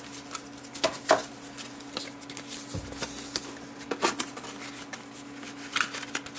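Paper inserts and a card envelope being handled on a desk: light rustling and taps, with a few louder rustles about a second in and again around four seconds.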